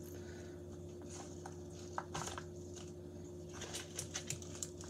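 Soft rustling and light crinkling of spring mix salad leaves picked through by hand in a plastic bowl, a few rustles about two seconds in and a cluster near the end, over a steady low hum.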